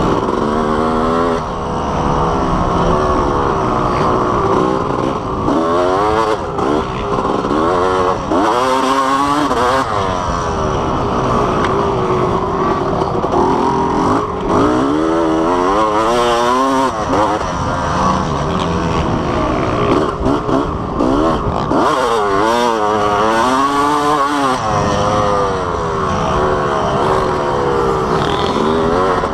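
Dirt bike engine revving hard and falling back over and over, its pitch climbing and dropping with throttle and gear changes as the bike is ridden around a motocross track.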